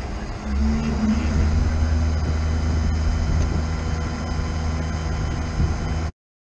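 Tow truck engine running steadily with a low hum, growing louder about half a second in; the sound cuts off abruptly near the end.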